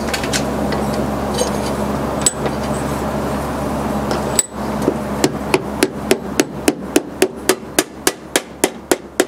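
A hammer tapping over and over, about three light blows a second, trying to knock a handle off a file's tang. The handle is a screw-on type and does not come free. Before the tapping, a steady hum cuts off about four seconds in.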